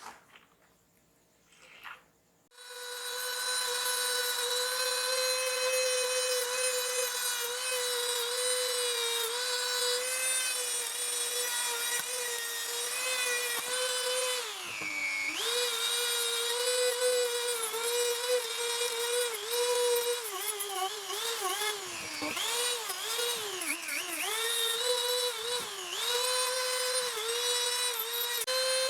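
A small high-speed power tool starts about two and a half seconds in and runs with a steady whine. Its pitch dips briefly several times, most often in the second half, as it bogs down against the work.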